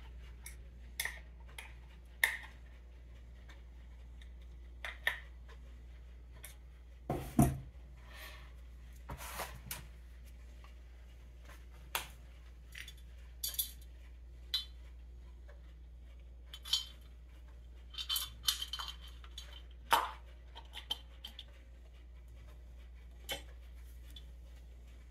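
Small metal parts and hand tools clinking, tapping and knocking irregularly as a Ford 8N carburetor is handled and reassembled by hand, with a couple of louder knocks, over a faint steady low hum.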